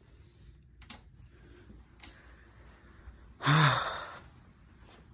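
A man lets out one loud, breathy sigh about three and a half seconds in, after two faint clicks.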